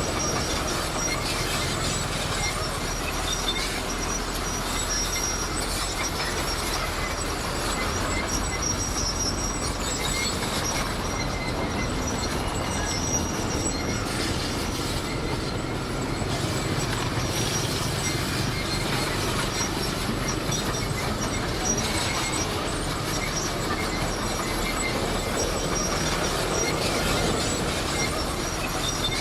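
Komatsu D58 crawler bulldozer working, its diesel engine running steadily under the squeal and clatter of its steel tracks.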